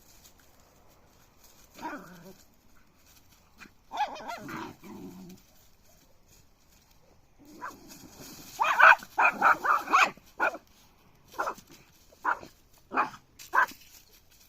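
A puppy barking in short, high yips. A couple of quieter sounds come in the first five seconds, then a quick run of barks a little past halfway, then single yips spaced under a second apart.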